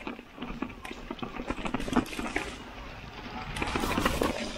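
Electric mountain bike riding down a wet, root-covered trail: tyres rolling and skidding over roots and rocks, with many short knocks and rattles from the bike. A rush of wind and trail noise swells up near the end.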